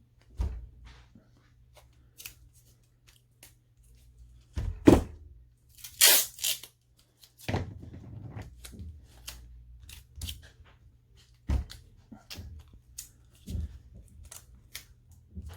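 Adhesive tape being pulled off a roll and torn, in a few short rasps, amid light clicks and taps of small parts being handled.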